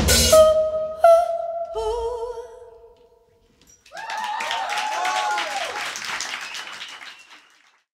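A live rock band's song ends on a final hit, leaving a few held notes that fade away. After a second of quiet, a small audience applauds and cheers, dying away before the end.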